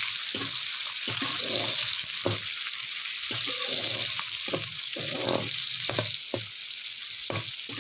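Sliced onions frying in ghee in a kadai, a steady sizzle, while a slotted metal spoon stirs them and scrapes against the pan every second or so.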